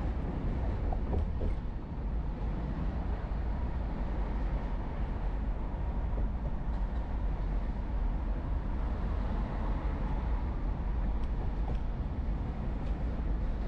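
Steady low road rumble of a car driving at speed, with tyre and engine noise heard from inside the cabin.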